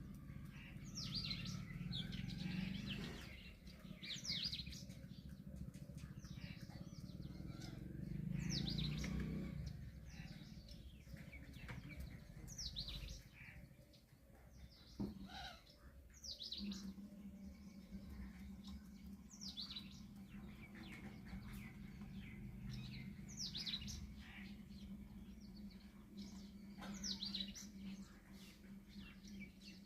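Bird chirping: short, high, falling chirps repeated every second or two. A low steady hum comes in about halfway through.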